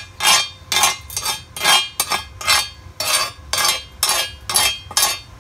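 Slag being cleaned off a fresh stick-welded bead: rapid, even metal-on-metal strokes, about two a second, that stop near the end.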